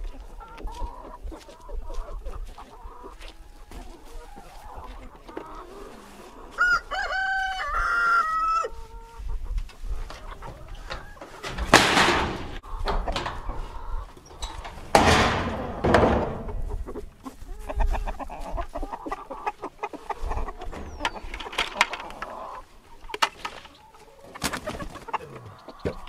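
Chickens clucking in a wire-sided chicken tractor, with a rooster crowing once about seven seconds in. Two loud bursts of noise come midway.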